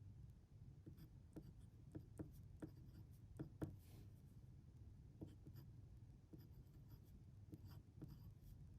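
A pen writing on paper, faint scattered taps and short scratches of the nib, over a low steady room hum.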